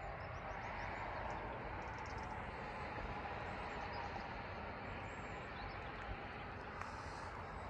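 Steady outdoor background noise with a low rumble, like wind or distant traffic, and a few faint, high bird chirps near the start and again about five seconds in.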